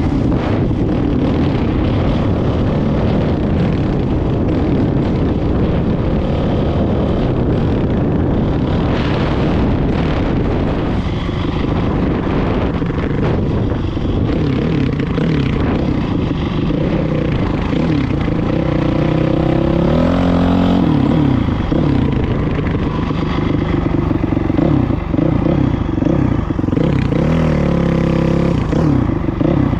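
A vehicle engine running continuously, its pitch rising and falling as the revs change, most clearly in the second half.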